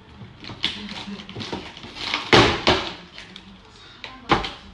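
Wooden packaging crate being handled and taken apart by hand: a run of clicks and scrapes, loudest in a scraping rush a little past halfway, then one sharp knock near the end.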